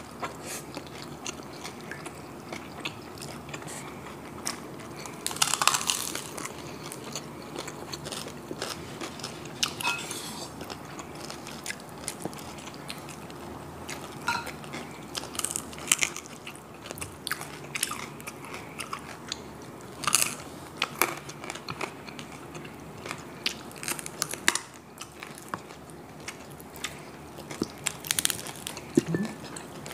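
Close-up eating sounds: crispy deep-fried pork knuckle (crispy pata) being bitten, torn apart by hand and chewed, with scattered sharp crunches of the crackling skin. The loudest crunches come about six seconds in, around twenty seconds and near the end.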